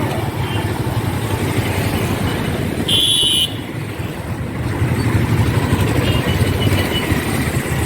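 Motor vehicle engine running amid road traffic, with a short horn honk about three seconds in and fainter horn toots later.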